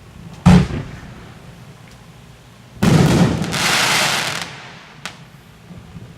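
Consumer firework cake firing. A sharp shell burst comes about half a second in. A second burst follows near the middle and runs on into about a second and a half of dense crackling hiss from its strobe stars, and a small pop comes near the end.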